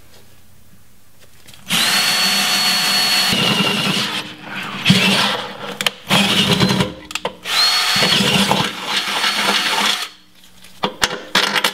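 Cordless drill boring a pilot hole into the Jeep's steel underbody: three runs of drilling with short pauses between, starting about two seconds in, the motor's high whine sounding as it spins up. A few sharp clicks near the end.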